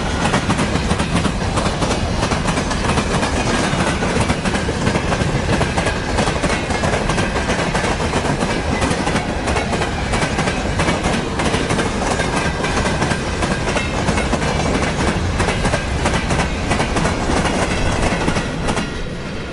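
Freight train rolling past, its wagon wheels clattering steadily over the rail joints; the sound eases a little near the end.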